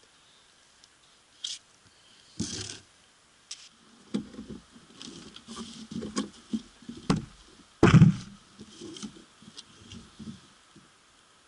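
Boots stepping and shuffling on snow-covered wooden floor joists and boards: irregular dull thuds and crunches, with a few sharp knocks and one louder thump about eight seconds in.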